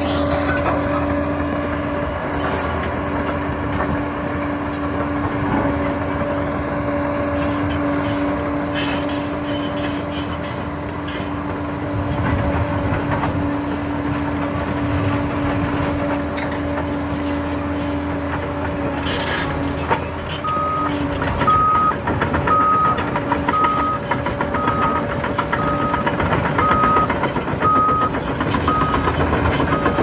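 Liebherr 746 bulldozer's diesel engine running steadily. About twenty seconds in, a reversing alarm starts beeping about once a second, the signal that the machine is backing up.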